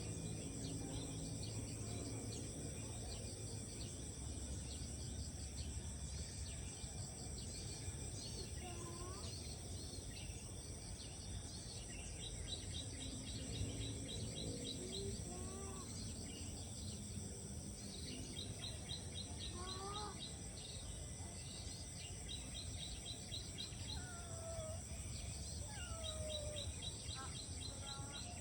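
Rice-paddy morning ambience: a steady high insect drone, repeated bursts of rapid chirping lasting a second or two each, and scattered short whistled bird calls. A low rumble runs underneath.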